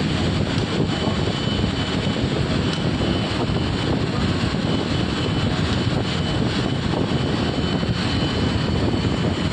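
A lathe running: a steady mechanical drone with a thin, faint high whine held above it.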